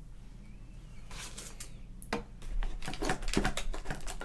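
A hand rummaging in a cardboard box among cardboard and plastic packaging: rustling with clicks and knocks. It starts about a second in and gets busier after two seconds.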